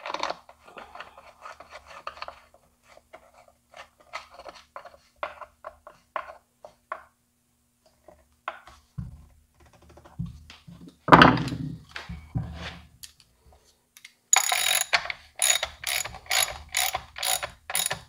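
Hand tools working on a Craftsman chainsaw. Small metallic clicks and rattles come as a screwdriver turns the chain-tension adjuster, with a louder knock about eleven seconds in. Near the end comes a run of sharp, evenly spaced ratchet clicks, about two a second, at the bar nuts.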